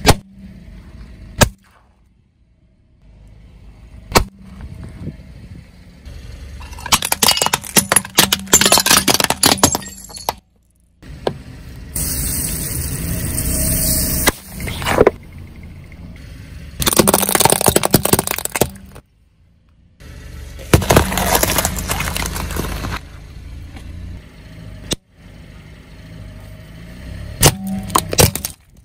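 A car tyre rolling over and crushing one object after another on asphalt: sharp pops, bursts of crunching and crackling, and, about halfway through, a hissing spray as a plastic bottle of fizzy drink bursts under the tyre.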